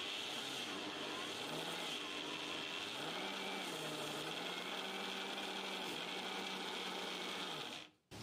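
A steady, faint mechanical drone over an even hiss. Its low hum steps up slightly in pitch about one and a half and three seconds in, then holds, and the sound cuts off abruptly near the end.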